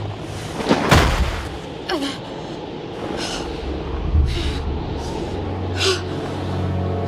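A sharp hit about a second in and a smaller one near two seconds, then a young woman's short gasping breaths as she lies winded, over a low steady musical drone.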